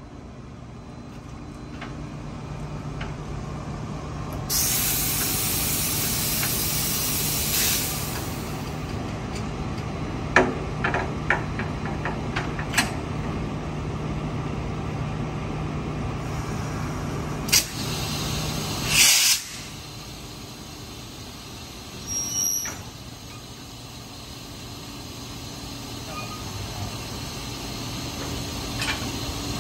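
Compressed air hissing from the brake line as a TRA E300-class electric locomotive is uncoupled from a cement hopper wagon: a long hiss a few seconds in, sharp metal clanks of the coupling gear, then a short loud blast of air about two-thirds through. Under it, a steady low hum from the locomotive stops at the blast.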